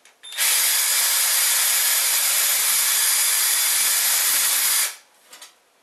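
Cordless drill boring a pilot hole into MDF board, running steadily for about four and a half seconds and then stopping.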